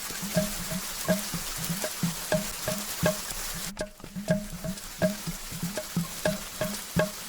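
Outro of an electronic psytrance track: a steady rain-like hiss under a regular pattern of short, pitched percussive knocks, nearly three a second, with a brief break a little before the midpoint.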